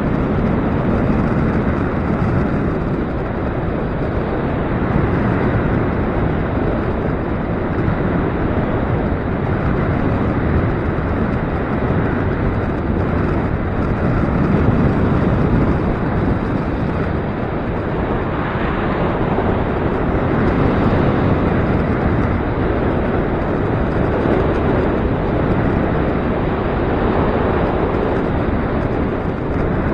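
Gusty wind buffeting the microphone: a loud, steady rush that swells and eases every few seconds.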